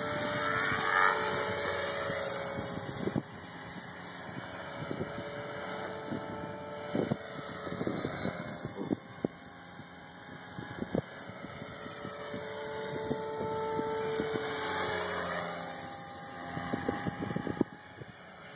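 Align T-Rex 500 electric RC helicopter in flight: a steady whine from the motor and rotors that swells and fades and slides up and down in pitch as it manoeuvres and passes, loudest near the start and again near the end. A few brief knocks are heard in the middle.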